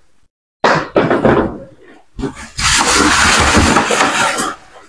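Packaging noise as a wrapped air-conditioner indoor unit is lifted from its box: foam end caps and plastic wrap rustling and scraping against the cardboard. A short burst comes about half a second in, then a loud, steady rustling rush for about two seconds near the end.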